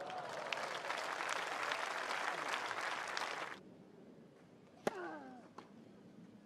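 Crowd applause after a point, cut off abruptly about three and a half seconds in. About a second later comes one sharp crack of a tennis racket striking the ball on the serve, followed at once by a short falling grunt.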